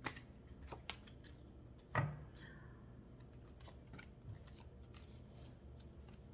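Tarot cards being handled and drawn from the deck: a few light card clicks and snaps in the first second, and one louder short knock about two seconds in.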